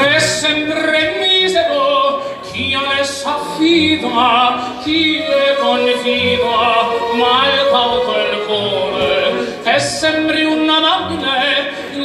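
Operatic singing: one voice holding long notes with a wide vibrato, sliding between pitches, amplified through the bar's PA.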